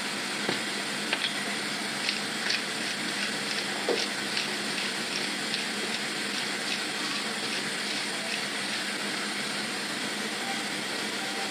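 Pot of mushroom soup cooking on the stove: a steady hiss of simmering liquid with scattered light clicks and pops over the first several seconds.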